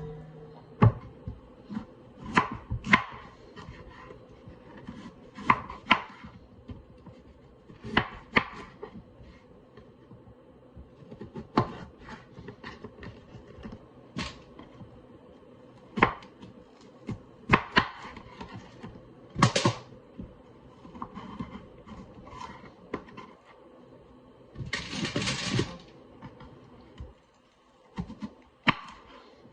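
A knife cutting potatoes into wedges on a cutting board: irregular sharp knocks a second or two apart. Near the end comes a short rustling noise lasting about a second.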